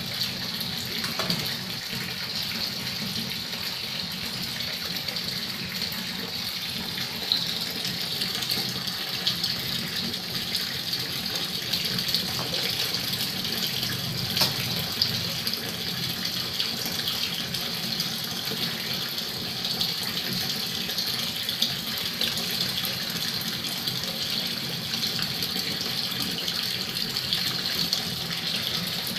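Water pouring steadily from a tap into a shallow tiled fish tank, splashing into the water below.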